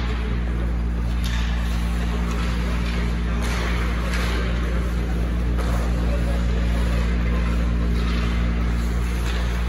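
Hockey rink ambience: a steady low mechanical hum with a faint background of voices, broken by a few light clacks.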